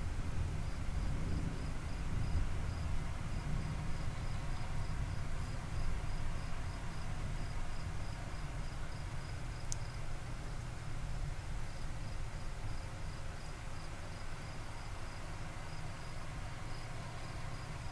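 Crickets chirping in a steady, even rhythm over a low rumble that is strongest in the first several seconds and then eases. A single sharp click comes about ten seconds in.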